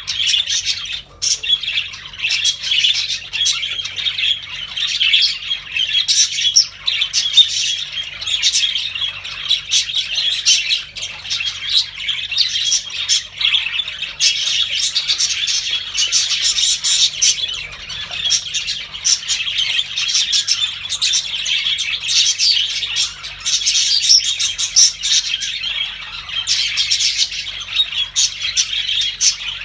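Several budgerigars chirping and chattering together: a continuous, busy mix of overlapping short chirps and squawks with no pause.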